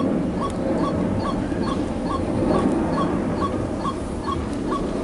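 Short high chirps repeat evenly, a little over twice a second, over a steady low rumble.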